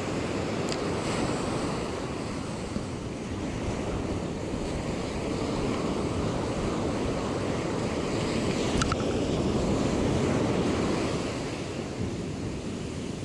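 Ocean surf breaking and washing up the beach, with wind buffeting the microphone; the wash swells about ten seconds in, then eases.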